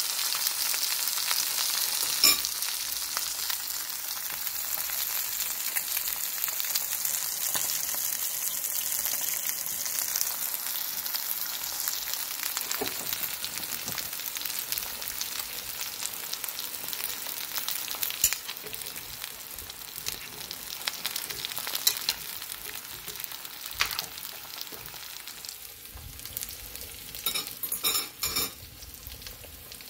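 Eggs frying in a nonstick pan: a steady sizzle that slowly grows quieter, with occasional sharp clicks and a short cluster of clicks near the end.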